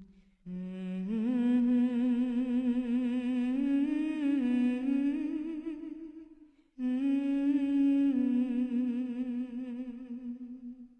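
A solo voice humming a slow, wordless tune with vibrato, in two long phrases with a short break about six and a half seconds in; the second phrase fades out at the end.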